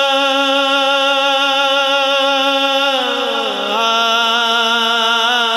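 A voice singing one long held note of a naat, which dips in pitch about three seconds in, comes back up, and then wavers.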